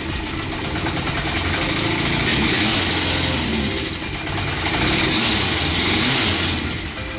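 Honda motorcycle engine running with the bike standing still, swelling louder twice as it is revved, about two and five seconds in.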